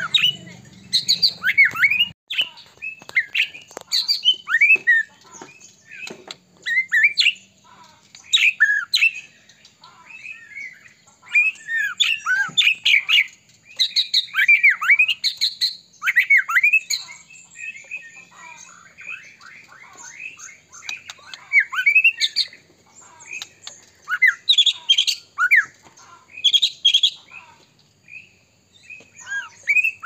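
White-rumped shama singing in full song: a varied stream of loud sweeping whistles and chattering notes in phrases every second or two, with short pauses and a softer run of chatter about two-thirds of the way through.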